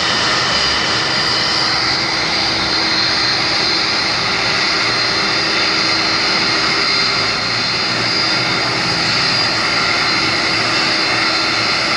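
Boeing 747's four jet engines at taxi power, a steady loud rumble with a high whine running over it as the airliner rolls along the taxiway.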